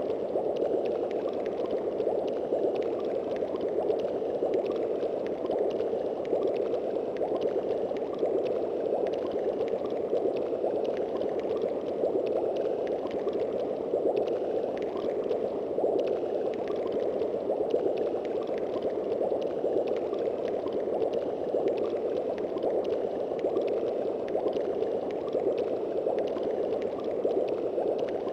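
A Yamaha YPT-300 Portatone keyboard sound effect: a steady rushing noise, fairly low in pitch, held without a break.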